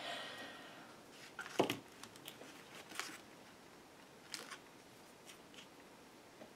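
Light clicks and taps of small craft objects being handled and set into a metal tin, with one sharper knock about a second and a half in and a few fainter ones after.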